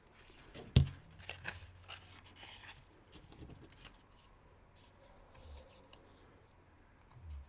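A sharp knock about a second in as a plastic glue bottle is set down on a wooden desk, then about two seconds of thin card rustling and rubbing in the hands with small ticks, and fainter handling after.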